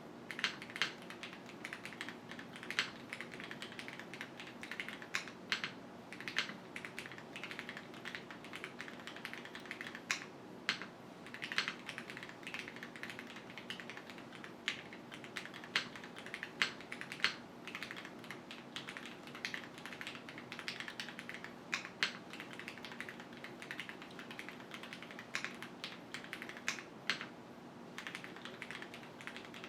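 Continuous typing on a QwertyKeys Neo 65 gasket-mount mechanical keyboard with Cherry HyperGlide Black linear switches, aluminium plate and no foam: an irregular stream of key clacks with scattered louder strokes.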